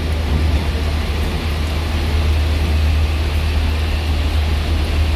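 Diesel engine of an intercity bus running at low speed close by, a steady deep drone, under the even hiss of heavy rain.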